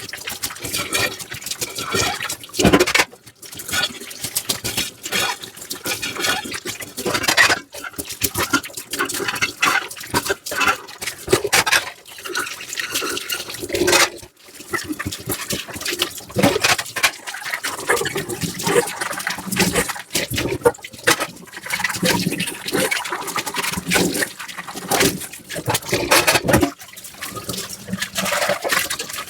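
Dishes being washed by hand at a sink: water running and splashing, with scrubbing and dishes clinking and knocking together at irregular moments.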